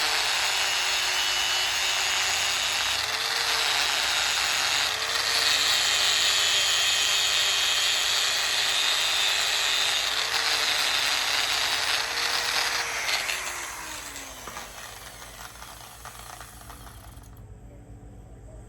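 Hand-held power tool running with a steady motor whine and a loud hiss of work on metal, the pitch lifting briefly several times. About thirteen seconds in, the motor winds down and stops.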